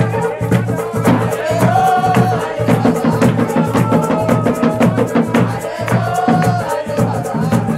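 Music: steady rhythmic drumming with a melody that glides above the beat.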